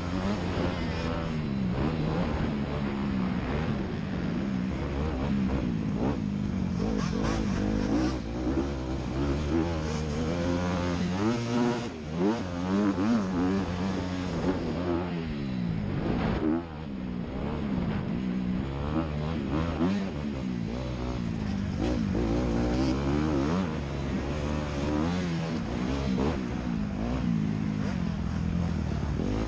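Honda CRF250R's four-stroke single-cylinder engine, heard from on the bike, revving up and down under hard riding as the throttle is opened and closed and gears are changed. The throttle is chopped sharply twice around the middle before the engine picks up again.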